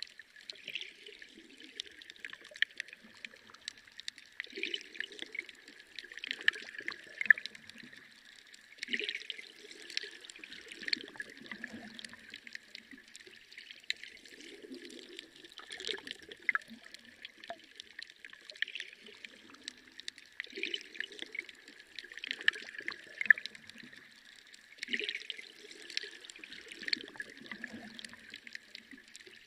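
Water trickling and splashing in a reef aquarium's circulation, with irregular small splashes and gurgles.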